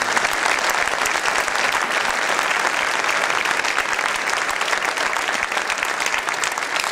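An audience applauding in a large hall: many people clapping together, steady throughout and dying away near the end.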